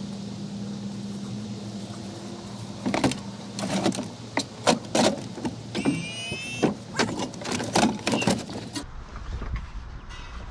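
A steady low hum, then a run of knocks and clanks as a steel tank water heater on a hand truck is rolled up and set on the truck's tailgate platform, with a brief rising squeal about six seconds in.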